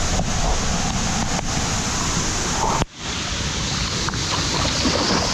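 Steady rush of a shallow river's water flowing over rocks, with a brief dropout a little before three seconds in.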